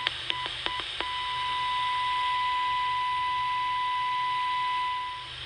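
Steady high-pitched test tone from a Channel Master 6514 transistor radio's speaker: the modulated 455 kHz signal injected at the first IF amplifier's base is coming through, so the stages from there on pass the signal. Clicks and brief cut-outs in the first second as the test clip makes contact, then the tone holds over a hiss and fades out near the end.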